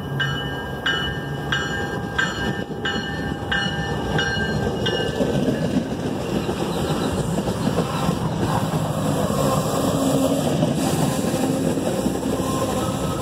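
MBTA commuter rail train running through the station, its bilevel coaches rumbling and clacking over the rails. For the first five seconds a ringing tone repeats about every two-thirds of a second over the rumble.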